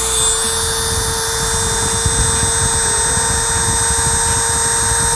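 Dremel rotary tool with a sanding drum running at full speed with a steady high whine, grinding through a carbon fiber hood to widen a strike-pin hole.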